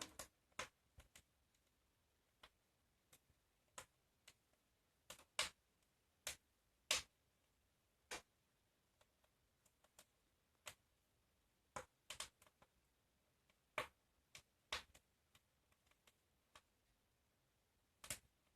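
Wood fire in a fireplace crackling: sharp pops and snaps at irregular intervals, with near quiet between them.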